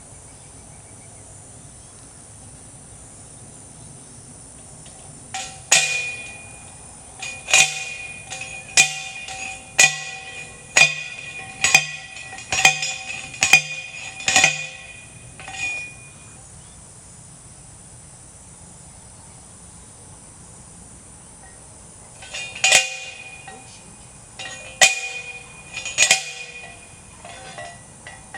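Manual T-post driver pounding a steel fence T-post into the ground: about ten ringing metal clangs roughly a second apart, a pause of several seconds, then a few more strikes near the end.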